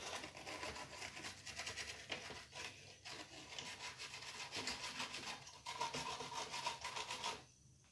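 Toothbrush bristles scrubbing a circuit board with thinner in rapid, even back-and-forth strokes, cleaning corrosion and grime off the board. The scrubbing stops shortly before the end.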